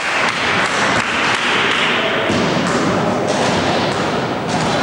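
Volleyball game in a large sports hall: thuds of the ball and players' voices echoing over a loud, steady din.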